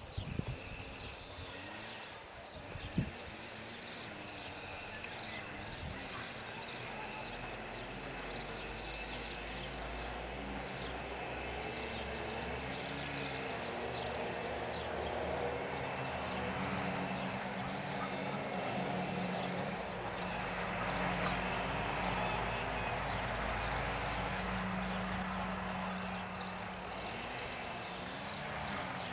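Footsteps on soft garden soil fading as the walker moves away, with one sharp knock about three seconds in. From about seven seconds a low steady hum with a wavering tone sets in and grows louder toward the middle and end.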